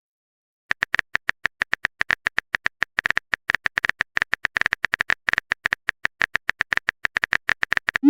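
Keyboard typing sound effect: a rapid, even run of sharp clicks, about ten a second, starting just under a second in.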